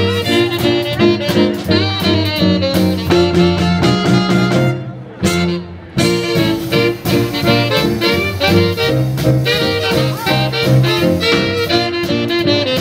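Instrumental break of a 1940s swing song, the band playing between sung verses. The music thins out and drops for about a second near the middle, then comes back in sharply.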